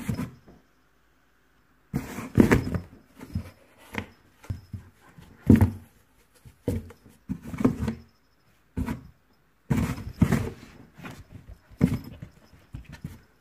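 Cardboard boxes being thumped, swatted and scratched as a cat and a person's hand jab at each other through the holes of a box fort. The knocks come irregularly, some in quick flurries, with a quiet stretch about a second in.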